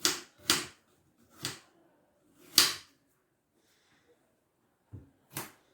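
Kitchen knife cutting through an apple and striking a cutting board, about six separate chops at an uneven pace.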